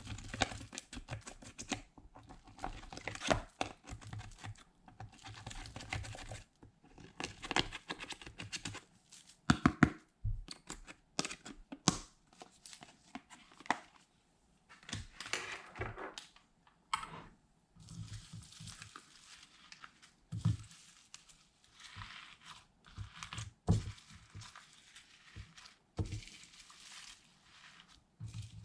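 Slime being stretched, folded and squished by hand, giving irregular sticky crackles, clicks and pops, with a brief pause about halfway through.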